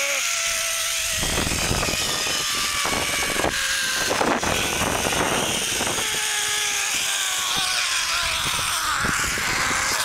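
Zip-line trolley pulleys running along the steel cable, a steady whine that slowly falls in pitch, under heavy wind rush and buffeting on the microphone.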